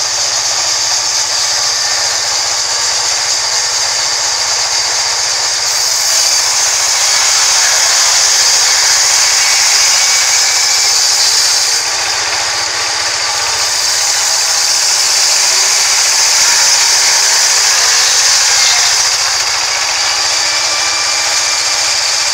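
Large vertical band saw running and ripping lengthwise through a rain tree log, a steady, loud, high-pitched hiss of the blade in the wood.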